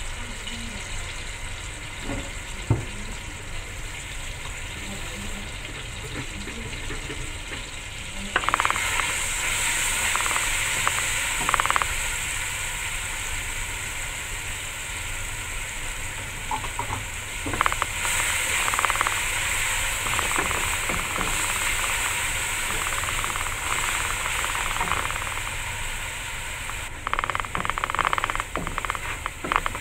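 Ground spice paste frying in hot oil in a granite-coated wok, sizzling and hissing while a wooden spatula stirs and scrapes it around the pan. The sizzle grows much louder about eight seconds in.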